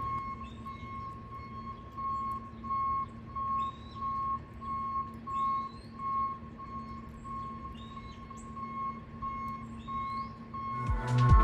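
Electronic music intro: a steady low drone with a pulsing tone about twice a second and short rising bird-like chirps about once a second, then a loud beat comes in right at the end.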